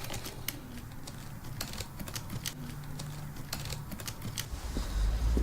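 Typing on a computer keyboard: irregular key clicks, a few a second. A low rumble comes in near the end.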